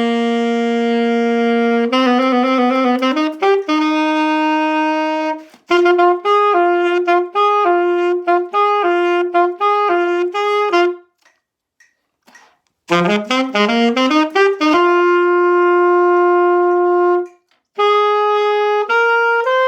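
A solo wind instrument plays an audition piece one note at a time, mixing long held notes with quick runs of short notes. It stops for about two seconds near the middle, then starts again.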